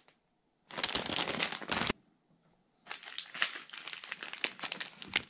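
Clear plastic lure packaging crinkling and crackling as it is handled: one burst of about a second starting under a second in, then after a short pause a longer run of crackles and small clicks.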